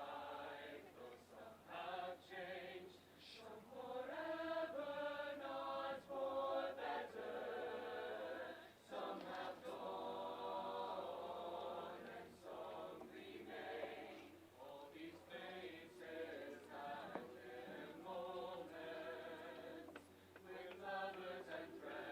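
A group of voices singing together, choir-style, in sustained, changing notes.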